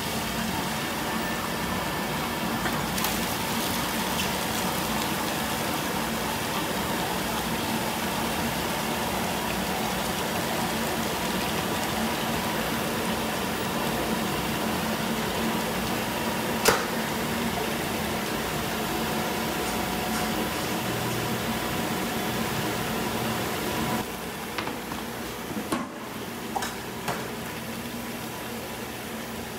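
Soy milk pouring in a steady stream from a metal spout into a large aluminium pot, over a steady machine hum. There is one sharp click about two-thirds of the way in. Near the end the sound drops lower, with a few knocks.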